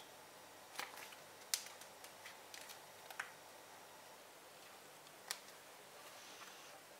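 Light clicks and taps of paper and sticker sheets being handled on a desk, four sharper ones standing out, and a faint paper rustle near the end.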